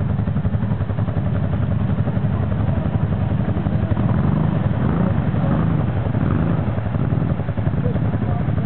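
ATV engines running: a close quad engine ticking over with a steady rapid pulse, while a second quad works through the mud toward it, a little louder from about halfway.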